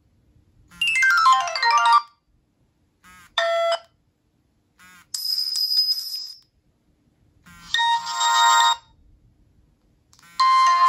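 Nokia 7373 phone's built-in loudspeakers playing a string of short alert tones one after another, about every two and a half seconds. The first is a quick falling run of notes, the third is a higher, buzzier tone, and the rest are short chimes.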